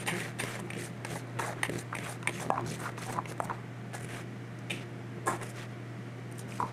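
Quick clicks and light scrapes of a utensil against a bowl as a bean salad is mixed, dense for the first three seconds or so, then a few scattered taps, over a steady low hum.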